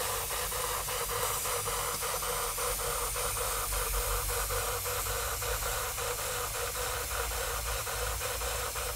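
Jensen live steam engine with a number 20 cylinder running steadily under steam: an even, fast beat of about five clicks a second over a steady hiss.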